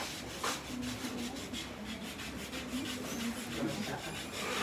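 Crochet hook being worked through a dreadlock, with hair rasping and rubbing in quick repeated strokes, several a second.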